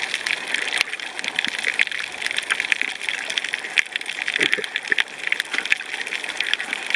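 Underwater coral-reef ambience: a steady, dense crackle of small clicks and pops.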